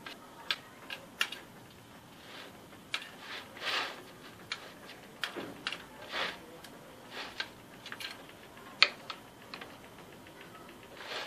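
Hands pressing and spreading a crunchy feuilletine croustillant layer into a metal cake ring: irregular small clicks and taps with short rustling scrapes of the crumbs.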